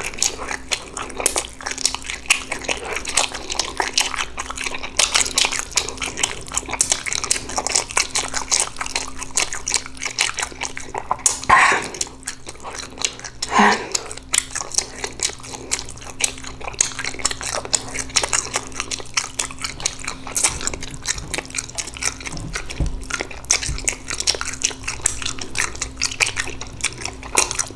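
Close-miked chewing with wet lip smacking and tongue clicks, a dense run of small irregular mouth noises, as a mukbang host eats crawfish and ramen noodles. Two brief sliding voiced mouth sounds come a little before the middle.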